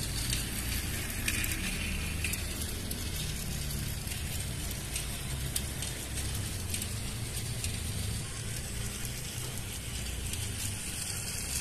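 Battery-powered toy steam train running round a plastic track, pulling its wagons: a steady whirr from its small electric motor and gears, with scattered light clicks.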